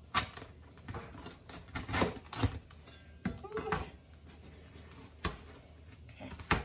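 A chef's knife cutting through the crust of a freshly baked loaf on a plastic cutting board, then the knife set down and the halves handled, with a few sharp knocks and clicks of the blade and bread against the board.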